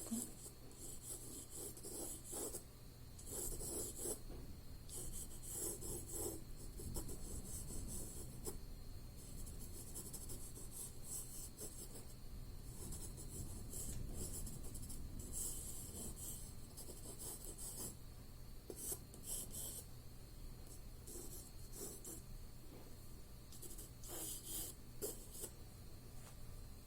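Pencil drawing on paper: short runs of light scratching strokes with brief pauses between them, as the outline of the drawing is sketched.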